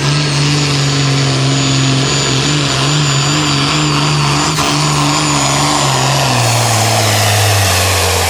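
A red International Harvester hot farm pulling tractor's diesel engine running flat out, loud and steady, with a thin high whistle above it as it drags the weight sled. About six seconds in, the engine note drops in two steps as the engine lugs down under the sled's growing load.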